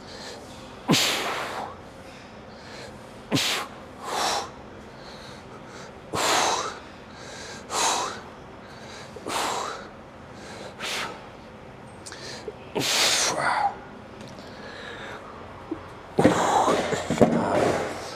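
A man's forceful breathing through nose and mouth, sharp breaths in a steady rhythm about one every second or so, in time with repetitions of a weighted shrug. A longer, heavier bout of breathing comes about 16 s in.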